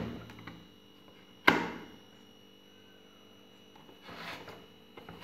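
Plastic paper-compartment cover of a thermal receipt printer snapping shut: one sharp click about a second and a half in, after a smaller knock at the start. Softer handling noise follows near the end as the printer is moved.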